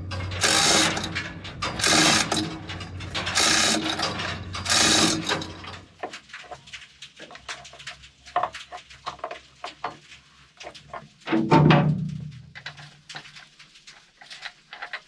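Hand chain hoist being hauled to lift an engine: the chain rattles through the block with ratchet clicks, in a stroke about every second and a half. About six seconds in this gives way to scattered metallic clinks of a spanner on an engine-mount nut, with one louder clank later on.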